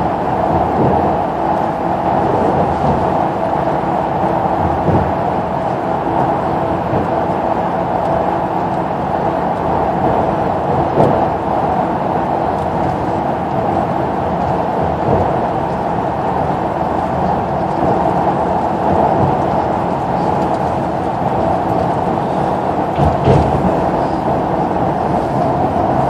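Steady engine and road noise heard inside a moving intercity coach cabin, with a couple of brief knocks, one about eleven seconds in and one near the end.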